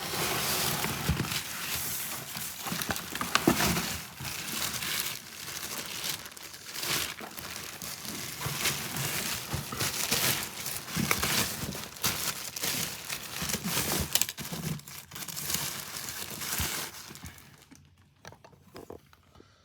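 Plastic packaging crinkling and rustling as a new tool bag is handled and unpacked. The rustling goes on with many small crackles and stops about two seconds before the end.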